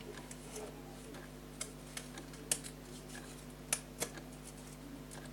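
Scattered light clicks and taps from a small surprise packet being handled and picked at by hand, over a steady low hum.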